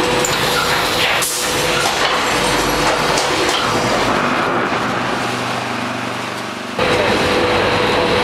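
Steady mechanical din of a concrete paver production line, with the paver stacking machine and roller conveyor running and a constant hum through it. The noise drops a little, then jumps back abruptly about seven seconds in.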